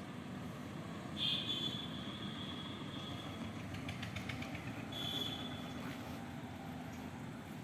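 Outdoor ambience: a steady low rumble, with a short high whistle-like tone repeating about every four seconds, loudest about a second in.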